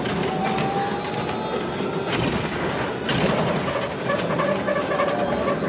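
Inside a moving city bus: steady engine and road noise as the bus drives along, with a faint motor whine.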